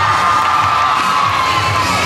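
Crowd of students cheering and screaming in a school gym, with a long high scream held through most of it that dips slightly near the end. A low steady beat of music runs underneath.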